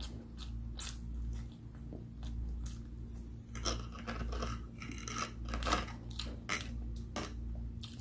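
Close-miked chewing: the wet clicks and smacks of a mouth working on a bite of luncheon meat. They come sparsely at first and grow busier from about halfway through. A steady low electrical hum runs underneath.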